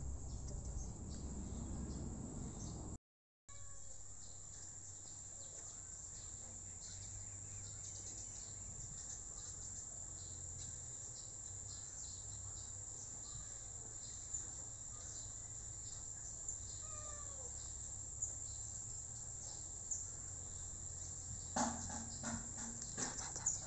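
Insects droning steadily at a high pitch, with a few short bird chirps and some light clicks near the end.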